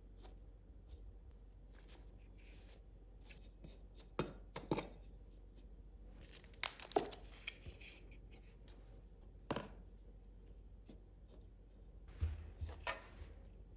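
Scattered handling sounds: a few short knocks and clicks a second or more apart, among light rustling and crinkling.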